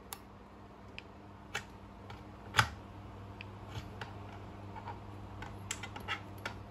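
Scattered light clicks and knocks from handling a cordless tool battery pack and multimeter test probes while taking a voltage reading, with the sharpest knock about two and a half seconds in and a quick run of clicks near the end. A faint steady low hum lies underneath.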